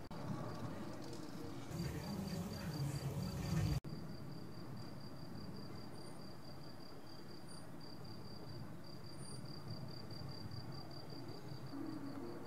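Cricket chirping steadily in quick even pulses, about five a second. About two seconds in, a low rumble of distant thunder swells for a couple of seconds and then cuts off abruptly.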